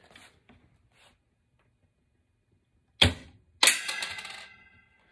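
A homemade spring-loaded launcher fires a nickel with a sharp snap, and about half a second later the coin strikes something and rings briefly as it settles.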